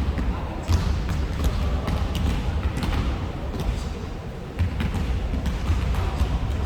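Basketballs bouncing and thudding on a gym's hardwood floor, with many short, sharp knocks at irregular intervals over a dense low rumble of play in the hall.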